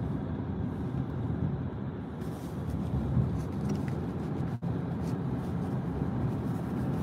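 Steady road and engine noise inside a moving car's cabin, a low even rumble, with the sound cutting out for an instant about halfway through.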